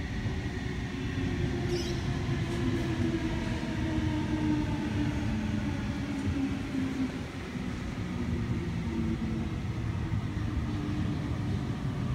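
Sydney Trains Waratah electric train pulling in on the next track and slowing to a stop: its traction motors whine in several tones that slowly slide down in pitch, over a steady rumble. It grows louder over the first few seconds.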